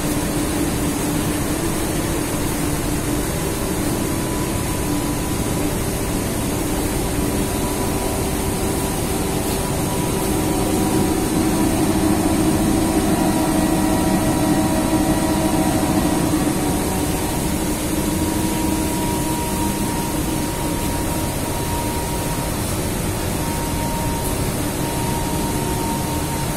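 Steady drone of running cotton-mill machinery, LMW comber and lap former, a low hum with a few steady whining tones on top. It grows somewhat louder midway, close to the lap former.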